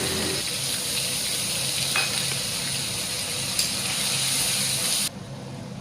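Ginger paste frying in hot mustard oil in an iron kadhai: a steady sizzle that drops away suddenly about five seconds in.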